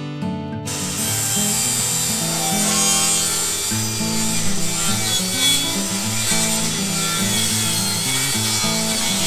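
DeWalt 60-volt cordless table saw cutting lengthwise along a long wooden board, a loud steady cutting noise that starts suddenly under a second in. Background music plays throughout.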